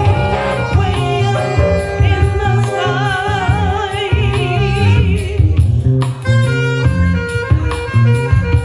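A woman singing with vibrato into a microphone over soul-jazz backing music with a heavy bass line and drums. The wavering vocal line stops about five and a half seconds in, and the backing carries on with shorter instrumental notes.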